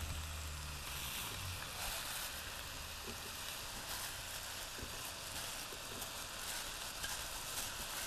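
Onions and mushrooms sizzling steadily in a frying pan, with a few faint soft knocks as boiled rotini pasta is tipped in from a bowl.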